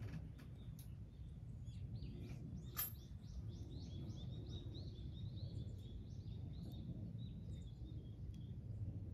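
A small bird singing a long run of quick, high notes in the background over a steady low rumble of outdoor noise, with a single sharp click about three seconds in.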